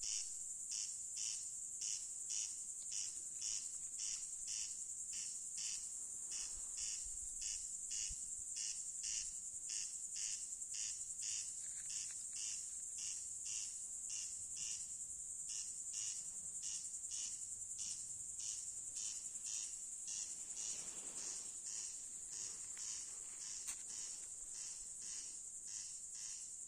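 Corncrake calling at night: a dry, rasping 'crex crex' repeated steadily about twice a second, over a steady high-pitched hiss.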